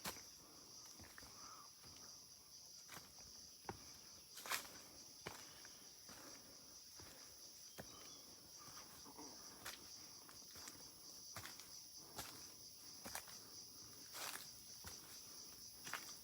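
Irregular footsteps on a trail, soft scuffs and knocks with a couple of sharper ones about four and a half and fourteen seconds in, over a steady high-pitched drone of insects.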